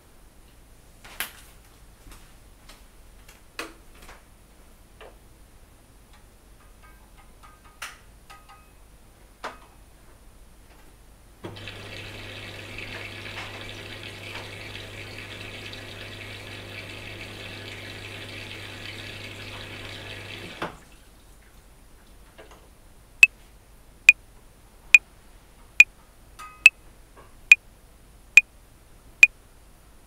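Top-loading washing machine on a cotton 60° wash: scattered faint clicks and drips, then about nine seconds of the motor turning the drum with water sloshing over a steady hum, which stops suddenly. Near the end a metronome clicks loudly and evenly at 70 beats per minute.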